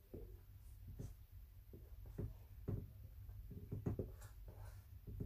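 Dry-erase marker writing on a whiteboard: a string of short, irregular strokes and taps as Hebrew letters and their vowel dots are drawn, over a low steady hum.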